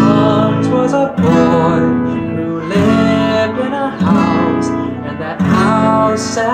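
Acoustic guitar strummed in chords, a fresh stroke about every second and a half, with a young man's voice singing over it.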